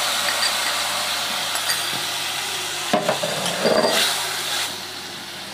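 Ground spice paste frying in hot oil in a steel wok, sizzling hard just after the bowl-rinsing water has gone in; the steady hiss fades toward the end. About three seconds in, a metal spatula stirs and scrapes against the wok.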